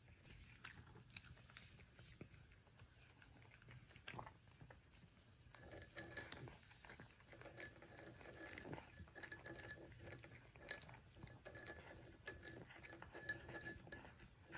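Cat eating dry kibble from a ceramic bowl: many small, irregular clinks of kibble and teeth against the bowl, with soft crunching.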